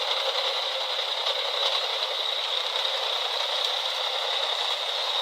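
Steady machine noise with a faint high whine and no changes, typical of a drum wood chipper running.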